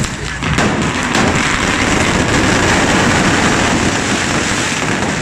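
Many carretilles, handheld Catalan spark-spraying fireworks, firing at once: a loud, steady, dense hiss with fine crackling, without pause.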